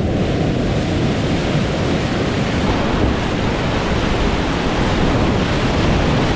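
Loud, steady rush of whitewater from a steep creek rapid, heard from a kayak running through it, with water splashing over the boat.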